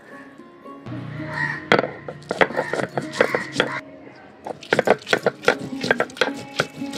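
Stone roller knocking and crushing ginger, green chillies, cashews, raisins and cumin on a flat stone grinding slab (sil-nora): a run of irregular sharp knocks and cracks that starts a couple of seconds in.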